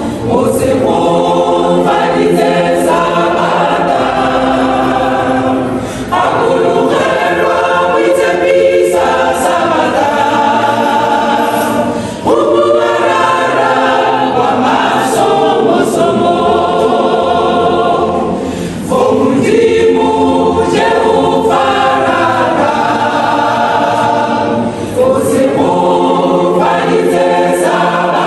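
Mixed choir of women's and men's voices singing a gospel song a cappella in close harmony, in sustained phrases of about six seconds with brief breaks between them.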